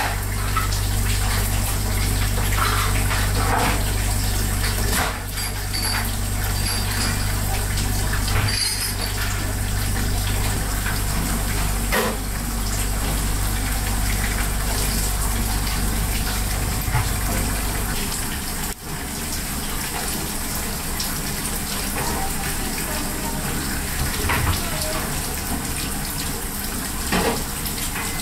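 Restaurant kitchen noise: running water over a steady low machine hum that stops about two-thirds of the way through, with scattered light clicks and clatters.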